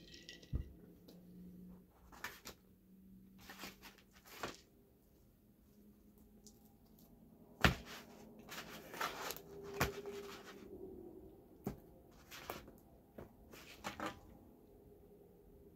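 Tabletop handling noises while eating: ice rattling in a glass jar as it is drunk from and set down, and a cardboard pizza box being handled. Scattered knocks and clicks, the sharpest about halfway through.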